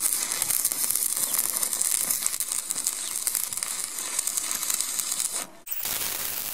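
Stick (shielded metal arc) welding: the arc crackling and hissing steadily as the rod burns along steel plate. It cuts out briefly about five and a half seconds in, then starts again.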